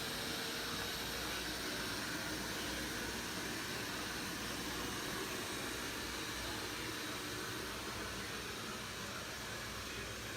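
Robot vacuum running: a steady whirring hiss of its suction fan and brushes, with no change in pitch.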